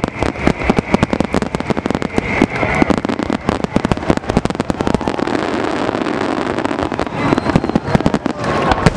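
Aerial fireworks finale: a dense, rapid barrage of shell bursts and crackle, with bangs coming many times a second. A little past the middle it eases for a couple of seconds into a steadier crackling hiss, then the bangs pick up again.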